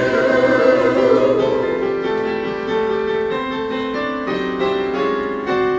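Men's chorus singing a long held chord, the harmony shifting note by note.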